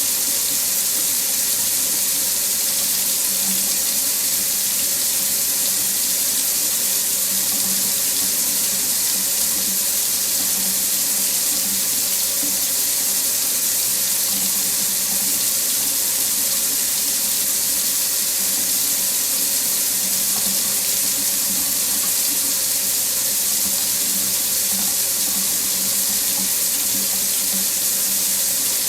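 Water tap running steadily into a sink, an even, continuous hiss of falling water that does not change.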